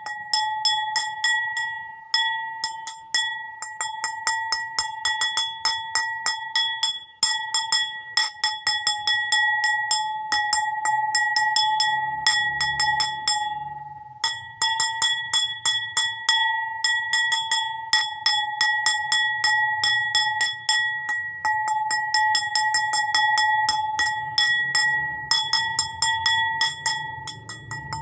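A bowl struck rapidly and over and over, every tap sounding the same clear ringing pitch, which carries on between taps. The tapping stops briefly a few times, then resumes.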